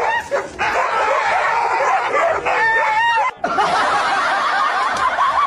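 A dense jumble of several dogs barking and yelping together, with laughter mixed in; it breaks off for an instant a little past three seconds and resumes.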